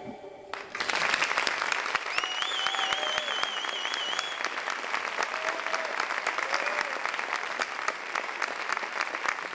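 Theatre audience applauding, breaking out about a second in. A high warbling cry rides over the clapping for about two seconds, with a few short shouts.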